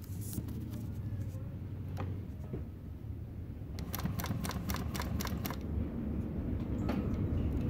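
Juki DNU-1541S industrial walking-foot sewing machine stitching through a thick, multi-layer cloth dog collar: a low running hum that grows louder toward the end, with a quick run of about eight sharp clicks near the middle.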